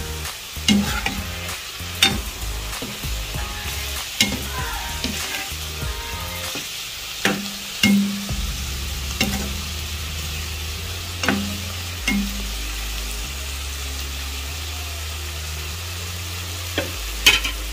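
Diced pork frying in oil in a non-stick wok, sizzling steadily as a metal ladle stirs it. Sharp knocks of the ladle against the pan come every second or few.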